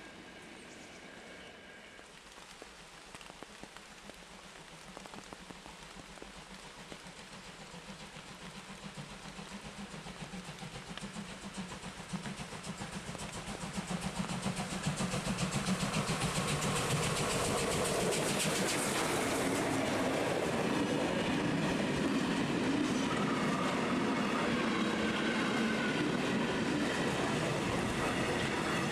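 Deutsche Reichsbahn class 03 steam locomotive 03 2204-0, a two-cylinder Pacific, approaching under steam, growing steadily louder until it passes about halfway through with a fast, even beat of exhaust. Its train of freight wagons then rolls past in a steady rumble.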